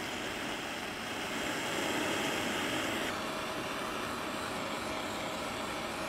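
Jeweller's gas torch flame running with a steady rushing roar while heating a silver piece for soldering. There is a slight change in tone about three seconds in.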